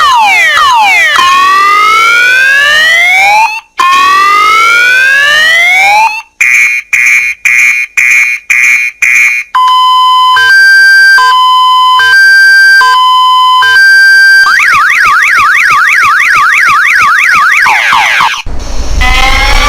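Car alarm siren cycling through its tones: quick falling chirps, then slow rising whoops, then a run of short beeps about two a second. It then alternates between a high and a low tone, moves into a fast warble, and starts the cycle over with rising sweeps near the end.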